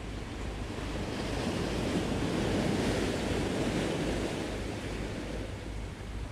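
Sea waves washing onto a rocky shore. The surf swells to its loudest a few seconds in and then eases off.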